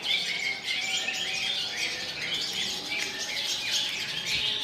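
Songbird singing a fast, unbroken twitter of short high chirps in sunbird-style song.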